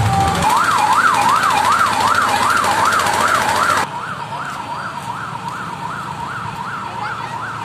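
A siren-style warble, a tone sweeping up and down about two and a half times a second, comes in as bass-heavy music stops just after the start. It is loud at first and quieter from about four seconds in.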